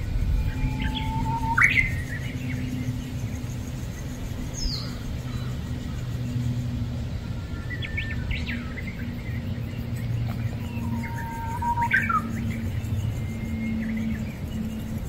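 Birds chirping in short, scattered calls, about 2, 8 and 12 seconds in, over a steady low hum.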